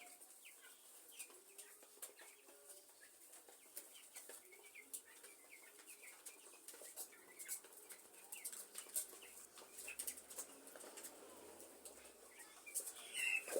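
A flock of four-week-old broiler chickens cheeping softly, with scattered sharp clicks and a louder call near the end.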